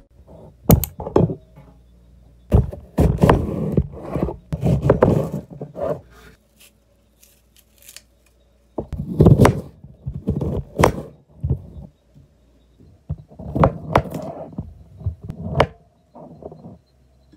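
Kitchen knife peeling and cutting a Japanese pear and a kiwi on a cutting board: crisp scrapes and knocks of the blade against the fruit and the board, in short bunches with quiet pauses between.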